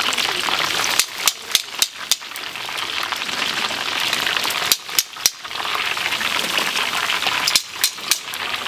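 Chicken deep-frying in oil, a steady sizzle, broken by sharp clicks in three short clusters.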